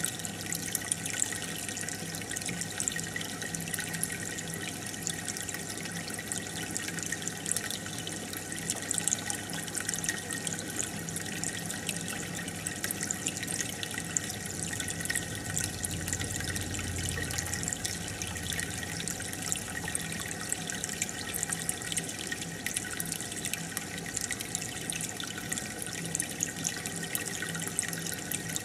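Aquarium air bubbler: a steady stream of bubbling, trickling water with many small pops, over a faint low hum.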